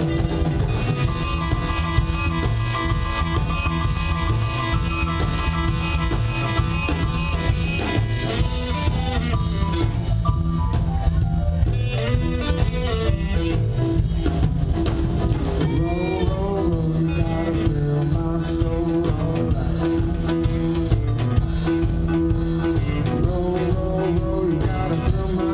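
Live rock band playing with drum kit, electric guitars, bass and keyboard. Guitar notes bend up and down in pitch through the middle of the passage.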